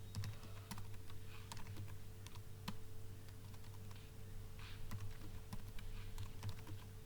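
Computer keyboard typing: irregular key clicks at an uneven pace, over a low steady electrical hum.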